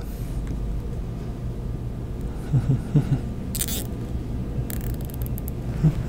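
Steady low room hum, with a few brief handling sounds near the middle as wires and plastic zip ties are moved about on the table.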